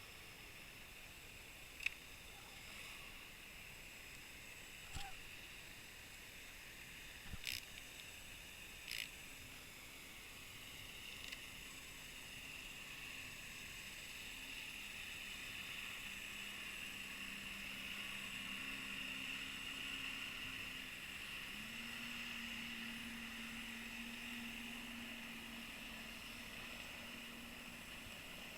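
Muffled underwater ambience from a submerged camera: a steady hiss with a few sharp clicks in the first several seconds, and a faint low hum, typical of a boat motor heard through the water, that steps up in pitch about two-thirds of the way through.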